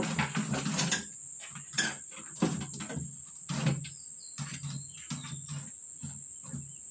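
Crickets trilling steadily in the background as a continuous high-pitched tone, with a few short soft knocks and bumps scattered through.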